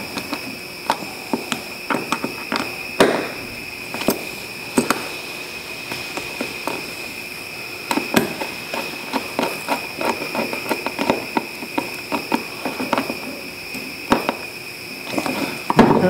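Screwdriver turning the terminal screws of a 240-volt plug, with irregular small clicks and light knocks of the tool and plug against the metal workbench, and a louder clatter near the end as the plug is handled. A steady high whine runs underneath.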